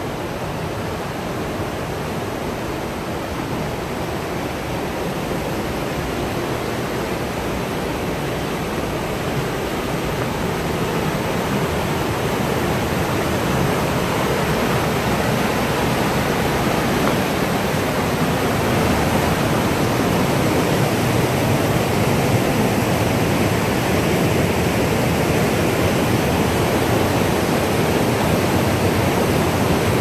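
Whitewater river rapids rushing steadily over and between boulders, growing gradually louder over the first twenty seconds or so.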